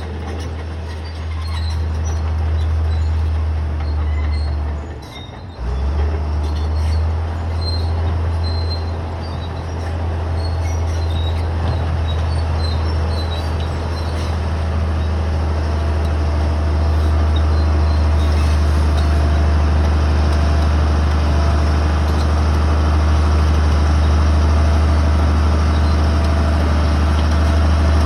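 Bulldozer's diesel engine running with a steady low drone, with scattered short high metallic squeaks from the crawler tracks. The sound drops off briefly about five seconds in, and grows a little louder from about seventeen seconds on.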